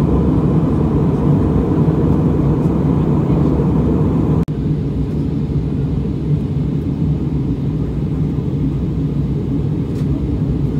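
Steady low roar inside an airliner cabin in flight: jet engines and airflow heard from a window seat over the wing. It drops out for an instant about four and a half seconds in, then goes on slightly quieter.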